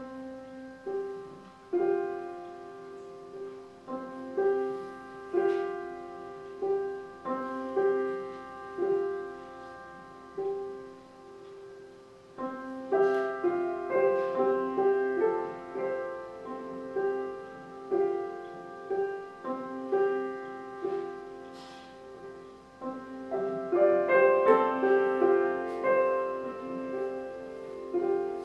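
Solo upright piano playing a slow, gentle figure of notes struck about once a second. The playing turns fuller and louder about halfway through, and is loudest near the end.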